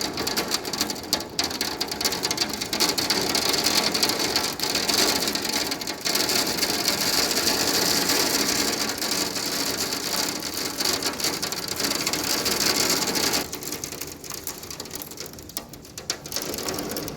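Heavy rain mixed with hail pelting down in a dense, steady clatter of hits, easing off suddenly about three-quarters of the way through.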